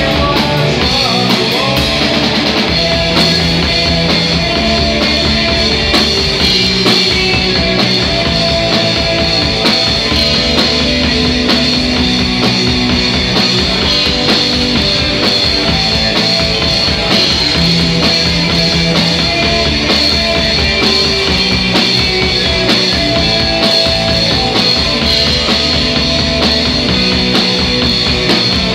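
Live rock band playing loud and steady: electric guitars, bass guitar and a drum kit.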